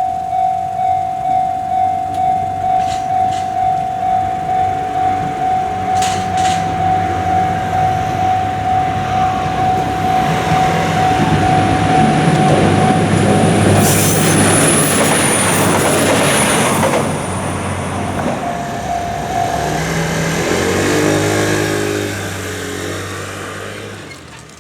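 A Japanese level-crossing warning bell clangs about twice a second (the "kan-kan" sound) while a train passes through the crossing. Its rumble swells in the middle, with a brief high-pitched wheel squeal, and the bell stops soon after the train arrives.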